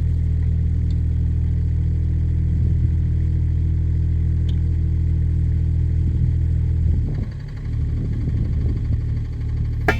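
Kubota mini excavator's diesel engine running with a steady note. About seven seconds in, the note breaks up and becomes rougher and a little quieter. A sharp click comes right at the end.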